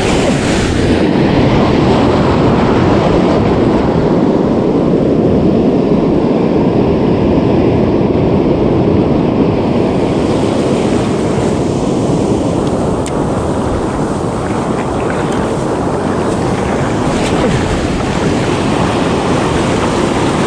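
Ocean surf breaking and washing in over the shallows around the feet, a steady loud rush of water and foam, with wind buffeting the microphone.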